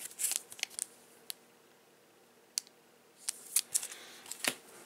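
Scattered sharp, light clicks and rustles of trading cards and a clear rigid plastic card holder being handled and set down on a table, with a quiet stretch in the middle.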